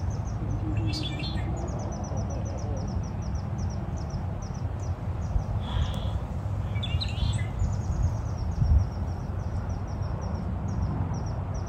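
Outdoor ambience at the water's edge: a steady low rumble, with a small bird's rapid, very high chirps repeated in runs of a second or two and a few brief sharper calls about a second in and again around six and seven seconds.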